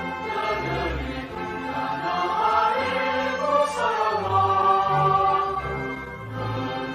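Recorded anthem sung by a choir with musical accompaniment, in held, sustained notes.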